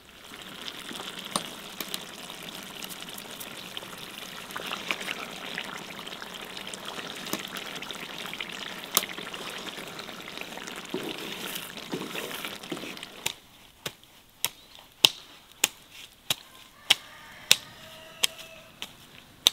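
Water pouring steadily for about thirteen seconds, then stopping. After it comes a run of sharp, evenly spaced knocks, about two a second.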